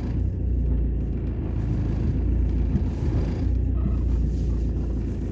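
A car's engine running at idle, heard inside the cabin as a steady low rumble.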